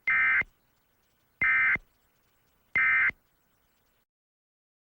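Emergency Alert System end-of-message data tones: three short, identical buzzing bursts of two-tone digital data, about 1.4 seconds apart, marking the end of the alert broadcast.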